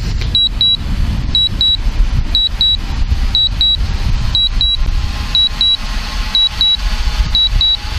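DJI Mavic Pro remote controller beeping in pairs of short high beeps, one pair each second, while the drone lands automatically. Heavy wind buffeting on the microphone sounds underneath.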